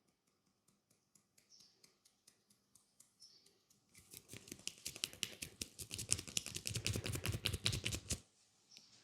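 Scissors snipping as an ASMR trigger: faint, light snips at about three a second, then about halfway in a fast, much louder run of snips that stops abruptly about a second before the end.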